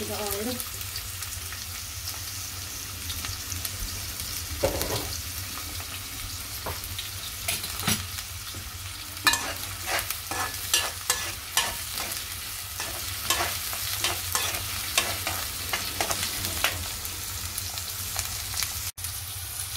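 Chopped onions and green chillies sizzling steadily in hot groundnut oil in a steel wok. From about a third of the way in, a spatula scrapes and clicks against the pan many times as the onions are stirred.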